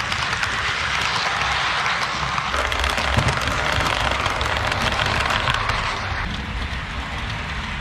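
HO-scale model train coaches rolling past close by: a steady rattling hiss of metal wheels on the track, full of quick clicks, which eases off about six seconds in.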